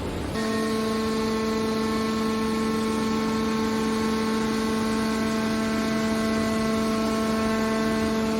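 Steady machine hum with a constant whine from an aluminium can baler's hydraulic power unit, starting abruptly just after the start and holding an even pitch and level.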